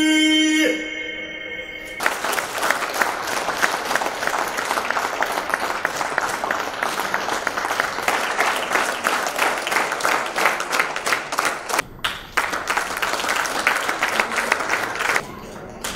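A held note of the dance's recorded music ends in the first second; after a short lull, an audience breaks into sustained applause, which dips briefly once and falls away near the end.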